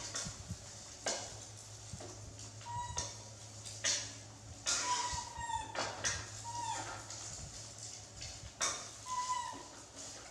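A small animal's short, high squeaking calls, about half a dozen, each a brief level note that drops at the end. Sharp clicks and crackling come in between.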